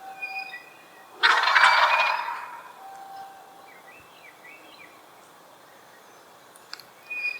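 A turkey gobbling once, a loud rattling gobble lasting about a second, the call of a tom turkey. Short, higher chirps from other birds come before it, around the middle and near the end.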